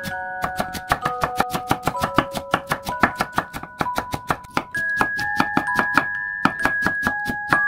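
Chef's knife rapidly chopping bell pepper on a wooden cutting board: quick sharp knocks, several a second, over light background music with bell-like mallet notes.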